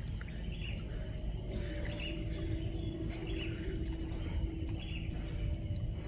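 Outdoor waterside ambience: a steady low rumble with faint bird chirps, and a faint steady hum that comes in about two seconds in and fades near the end.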